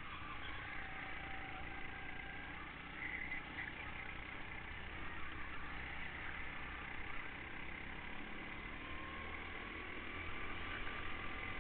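Go-kart engine running while the kart laps the track, heard from on board the kart, its pitch drifting up and down a little with the throttle.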